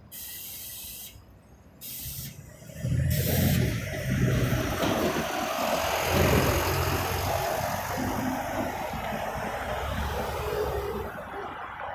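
City street traffic. A few short hisses come in the first few seconds, then a heavy vehicle's engine runs loudly from about three seconds in and stays up.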